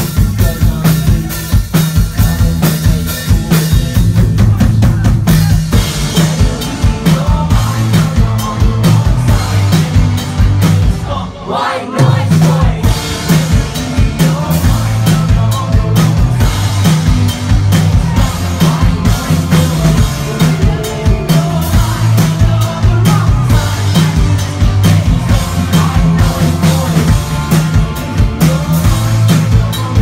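Live rock band playing loud, with drum kit and guitar, and a short break in the music about eleven seconds in.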